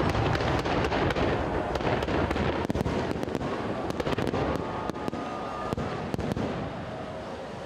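Salute fireworks bursting overhead: a dense, continuous run of booms and crackling pops, slowly fading over the seconds.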